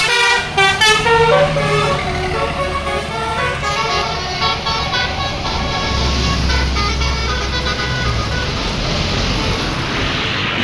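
Bus telolet horn playing a quick melody of stepping notes over a bus engine's rumble; the horn tune is loudest for the first few seconds and then fades, while the engine rumble swells past the middle.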